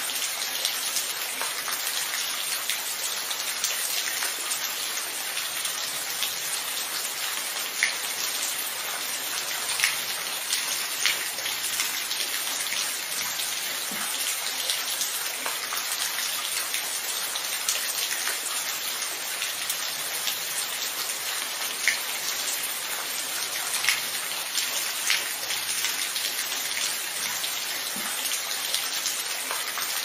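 Steady rain falling: an even hiss with scattered sharper drop ticks.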